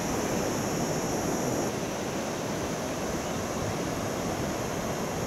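Steady surf breaking and washing up a sandy beach, with wind buffeting the microphone.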